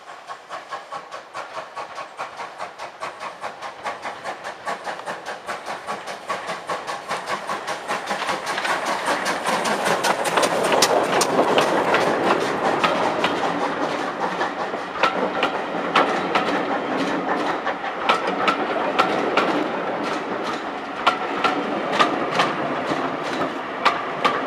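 GWR 2251 class 0-6-0 steam locomotive No. 3205 working toward and past, its rhythmic exhaust beats growing steadily louder as it nears. As the coaches go by, their wheels click and clatter over the rails.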